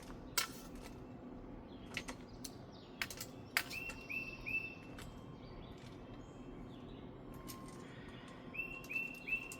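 A bird calling in short runs of three or four quick, similar notes, twice, with a few sharp clicks and knocks in between.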